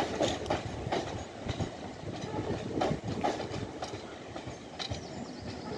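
Train running on the line, its wheels clattering with irregular sharp clicks and knocks over rail joints above a steady rumble.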